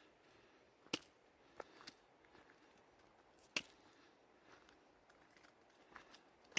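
Near silence broken by a few scattered sharp clicks and taps, the two loudest about a second in and about three and a half seconds in.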